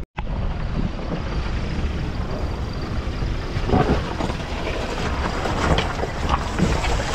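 Safari vehicle driving: steady engine and road rumble, with a few louder knocks as it goes.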